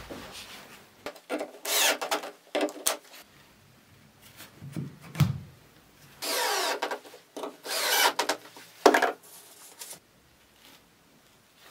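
Wooden boards being slid and rubbed across a workbench top by hand, in several scraping passes, with a sharp knock of wood on wood about nine seconds in.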